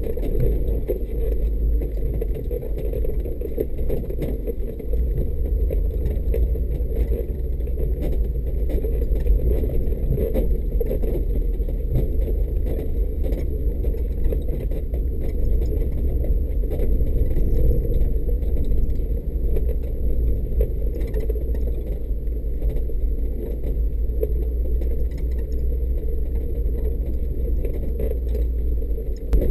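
Mercedes G500's V8 running steadily at low speed as the vehicle crawls along a grassy track, a continuous low rumble picked up on the bonnet, with faint rattling over it.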